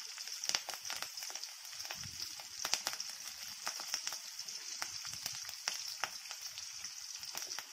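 Tempering frying in hot oil in an aluminium kadai: sliced onion, dried red chillies and freshly added curry leaves sizzling with a steady hiss and frequent small pops and crackles.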